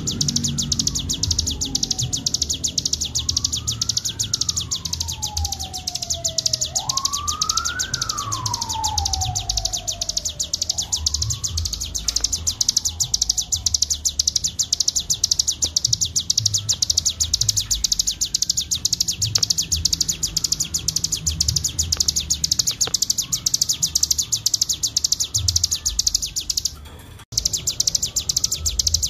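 Cigun (ciblek gunung) songbird singing a continuous, very rapid high-pitched trill in the 'ngebren' style, breaking off briefly near the end. Over the first ten seconds a separate whooping tone slides up and down in pitch several times.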